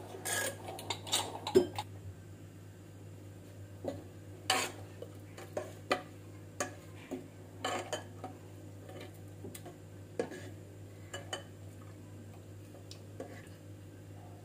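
A pressure cooker's lid clattering as it is lifted off, then a ladle stirring thick cooked dal in the cooker, knocking against the pot in scattered separate clinks.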